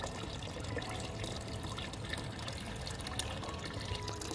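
A small fountain's metal spout running a steady stream of water that splashes into a water-filled metal trough.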